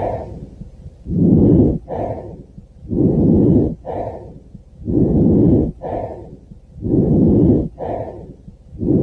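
Breath sounds as heard through a stethoscope: about five breath cycles, roughly one every two seconds, each a longer, louder breath in followed by a shorter, quieter breath out.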